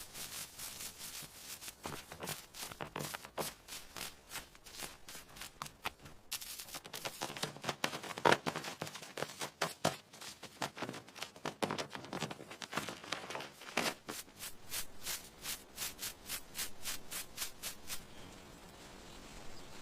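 Rapid rough scraping strokes, about three to four a second, with a short break about six seconds in, stopping about two seconds before the end.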